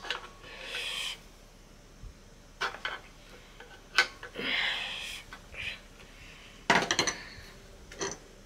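Sharp metal clicks and scraping from hand tools working a spring washer and the plastic cooling fan off an air compressor's motor shaft. A cluster of clicks about seven seconds in is the loudest.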